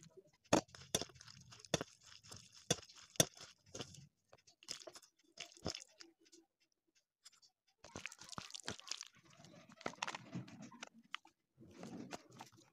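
Water poured into a steel bowl of gram flour, sliced onion and spices, then a hand mixing the wet besan pakora batter, with irregular wet clicks and crackles against the bowl and a pause midway.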